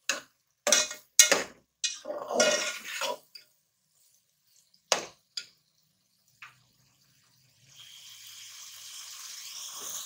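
Slotted metal spatula scraping and clanking against an aluminium pot while stirring a thick dal-and-karela mixture: several sharp strokes in the first three seconds and two more around five seconds. From about eight seconds the mixture sizzles steadily as it fries, the oil starting to separate at the sides.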